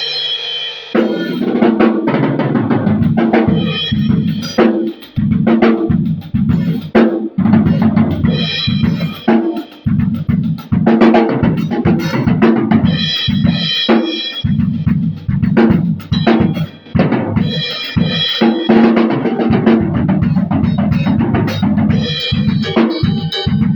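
A drum kit played continuously with bass drum and snare hits in quick succession, loud and dense, as in a sound check.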